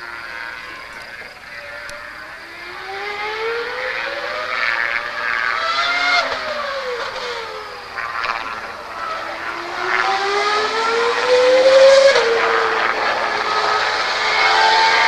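Formula 1 car engine revving hard, its pitch climbing, falling back about six seconds in, then climbing again to a quick drop near twelve seconds in, as at a gear change, and growing louder.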